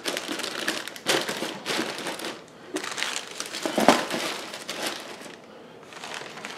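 Clear plastic bags crinkling and rustling as the plastic model-kit sprues inside them are handled and packed back into the cardboard box, in irregular bursts with the loudest crinkle about four seconds in.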